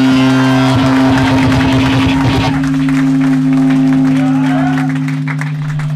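Live band playing loud electric guitar and drums, which breaks off about two and a half seconds in, leaving the guitar amp droning on a steady feedback tone while people in the crowd shout.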